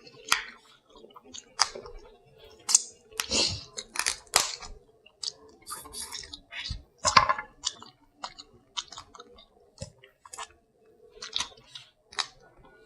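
Close-miked eating of seafood from a seafood boil: irregular chewing, wet smacking and sharp clicks.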